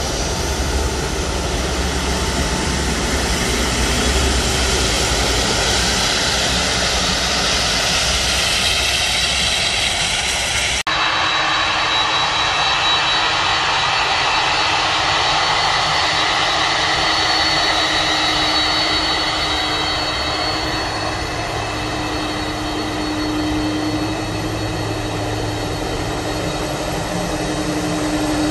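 Jet airliner engine noise, then, after a cut about eleven seconds in, a Boeing 767 freighter's turbofan engines running with a steady whine over the rush of the engines as it moves along the runway.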